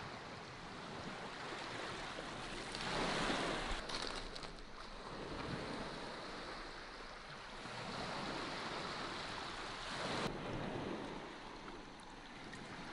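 Shallow water running over pebbles in a shingle channel: a steady rushing that swells and eases a few times.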